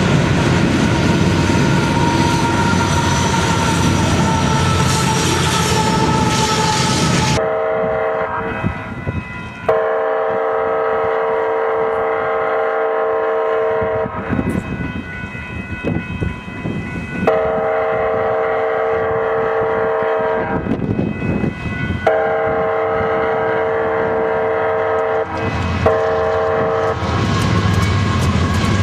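Freight cars rolling past on the rails with a thin steady whine. About seven seconds in, after a cut, a Union Pacific freight train led by a GE Dash 9 locomotive sounds its air horn for a grade crossing: several long blasts and a short one. Near the end the locomotive's engine and wheels arrive.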